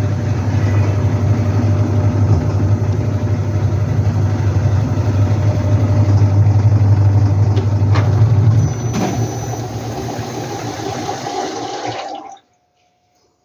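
Whirlpool top-load washing machine running with water rushing and a steady motor hum; the sound changes about nine seconds in and cuts off suddenly near the end.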